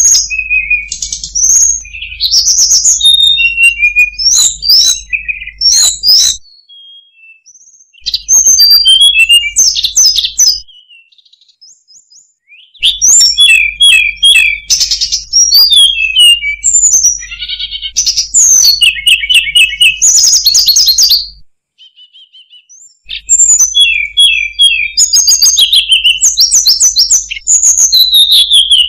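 Hill blue flycatcher (tledekan gunung) singing: fast, high, warbling and trilling phrases in long runs, broken by three short pauses of about two seconds.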